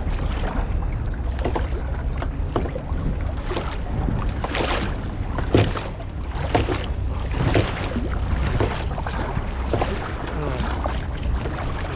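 Kayak paddle strokes splashing into the water about once a second, over a steady low wind rumble on the microphone.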